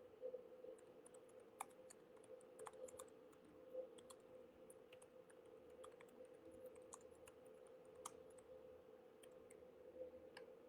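Near silence: room tone with a faint steady hum and scattered faint clicks.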